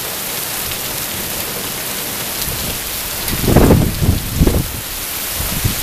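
Heavy rain pouring down in a thunderstorm downpour, a steady hiss. About three seconds in, wind gusts buffet the microphone in two loud, choppy low surges.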